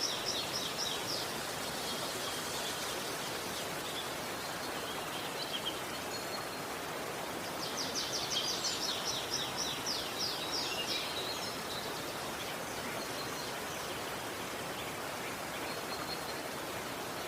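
Steady rush of a flowing river, with a bird singing a fast trill of rapidly repeated high notes in the first second and again for about three seconds midway, plus a few short scattered calls.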